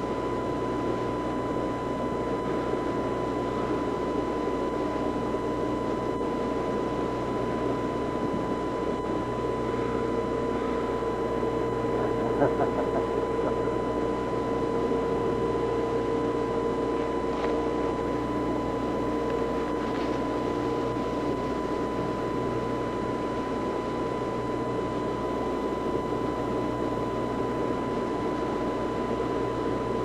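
Steady drone of a boat's engine under way, mixed with the rush of wind and wake, with a constant high tone over it.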